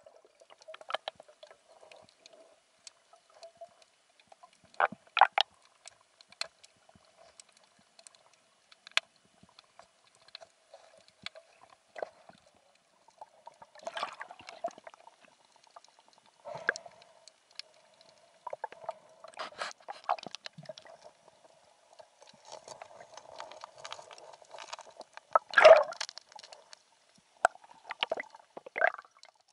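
Water sounds in the sea during spearfishing: scattered clicks and crackles with gurgling over a faint steady hum, and a louder burst near the end.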